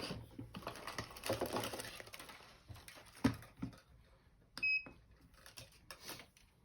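Rustling and handling noise, then a few sharp clicks and knocks as a digital meter with a type K thermocouple probe is set up. Partway through comes a single short electronic beep.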